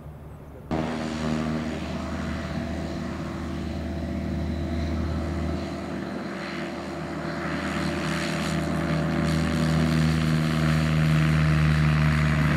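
Single-engine light propeller aircraft running at takeoff power, a steady engine drone that starts abruptly about a second in and grows gradually louder as the plane rolls down the runway and lifts off.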